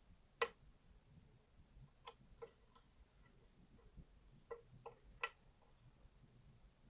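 Faint, irregular clicks of a lock pick working inside a pin-tumbler lock's sharply warded keyway, catching on pins and warding, about seven in all, with two louder clicks about half a second in and near the five-second mark.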